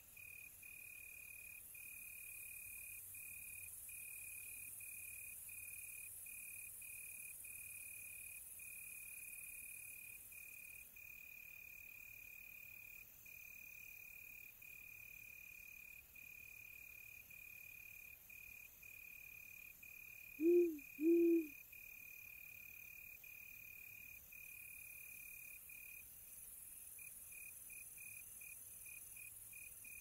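A cricket trilling in one steady high-pitched tone with brief breaks, and an owl hooting twice, low, about twenty seconds in; the two hoots are the loudest sounds.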